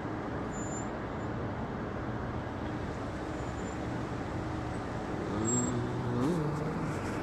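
Road traffic: a steady rush of passing cars, with one engine rising in pitch as it speeds up near the end.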